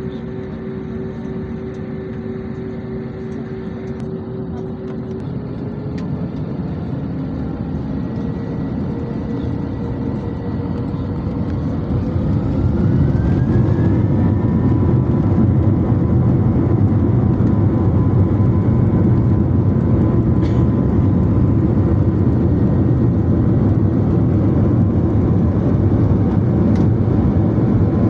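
Jet airliner engines spooling up to takeoff power for the takeoff run. A whine rises in pitch about halfway through as the engine noise swells, then settles into a steady loud roar with a deep rumble.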